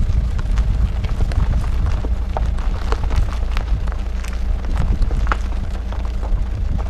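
Wind buffeting the camera's microphone in a heavy low rumble, with short crunching crackles scattered through it from footsteps on a gravel lane.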